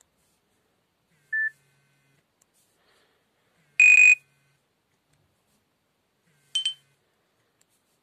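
Three short preloaded alert tones from a Nokia 5800 XpressMusic previewed one after another: a brief beep about a second in, a louder, harsher buzzer tone near four seconds, and a short high chirp a little past six seconds, with silence between them.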